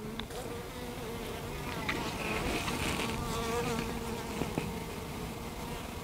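Honey bees from an opened five-frame nucleus hive buzzing in a steady hum around a brood frame held up out of the box.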